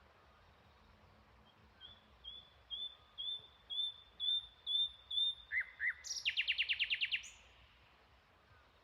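A bird singing: a run of about ten short high notes, about two a second and getting louder, then two lower down-slurred notes and a fast rattling trill that stops abruptly.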